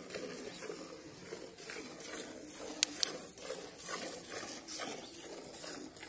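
Hand-milking a cow into a steel pail: milk squirts hissing into the frothy milk in a steady rhythm, about two a second. Two sharp clicks a little before the middle.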